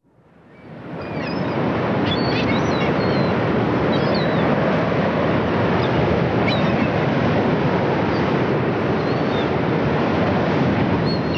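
Ocean surf, a steady wash of breaking waves that fades in over the first second or two, with short high chirps scattered through it.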